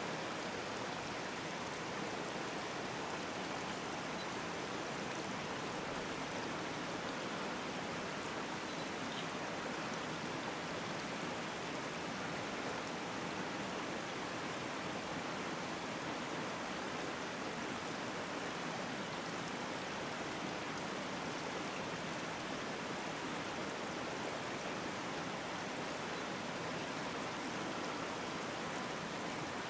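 Steady rushing of flowing stream water.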